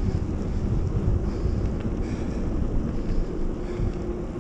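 Wind buffeting the microphone of a handlebar-mounted camera, with mountain-bike tyres rolling on a paved path while riding. A faint steady hum sits underneath.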